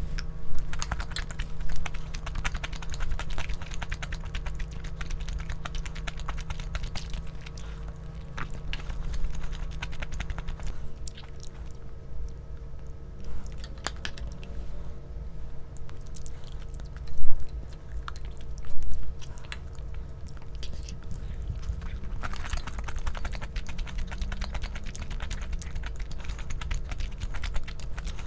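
A person chewing and eating close to the microphone, with many small clicks and two sharp louder knocks about two-thirds of the way through, over a steady low hum.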